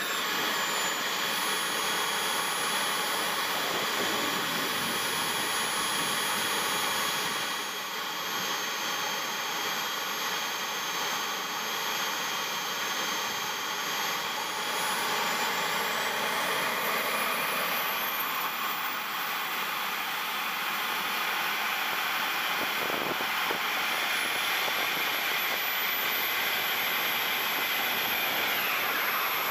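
JetCat P160SE turbine of a radio-controlled A-4 Skyhawk jet running with a steady rushing whine. Partway through, the high whine climbs in pitch as the turbine spools up, and near the end the jet is on its takeoff roll.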